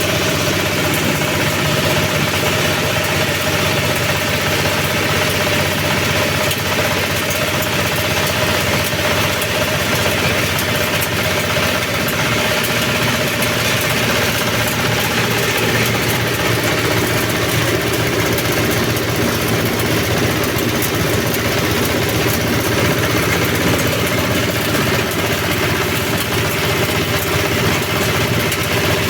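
Multi-purpose chopper-grinder machine for manure and compost running steadily with a continuous mechanical drone.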